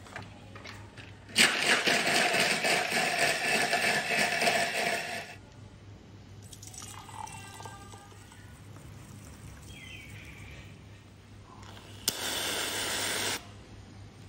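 Stainless-steel kitchen-machine blender running for about four seconds, blending an ice-blended latte mixture. It is followed by a quieter pour of the drink into a glass, and a short loud hiss near the end as whipped cream is sprayed on top.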